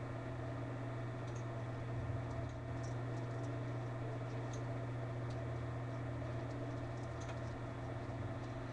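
Steady low electrical hum with a few faint, scattered mouse clicks.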